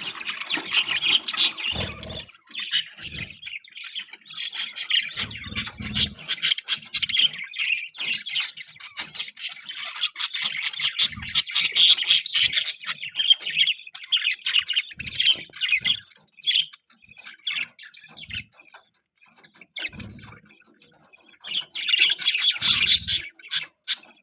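Budgies chirping and squawking in rapid, dense bursts. The calls thin to scattered chirps about two-thirds of the way through, then pick up again near the end. Occasional brief low thumps come through among them.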